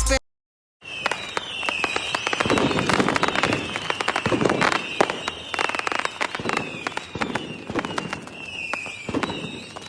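Fireworks crackling and popping densely, starting about a second in, with a high whistling tone that falls in pitch again and again over the crackle.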